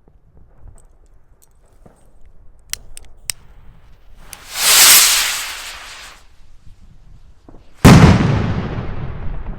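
Zink 902 signal rocket: a few sharp clicks, then a loud hissing whoosh as it launches, and about three seconds later a single loud bang as it bursts, with a long fading echo.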